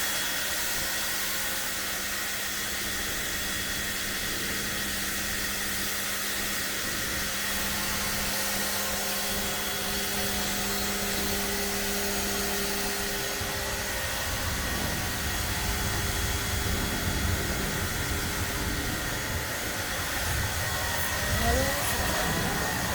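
Makita 1300-watt, 240-volt electric pressure washer running and spraying water: a steady hiss of spray over the motor's hum. The hum note drops away about halfway through, and a low rumble comes in.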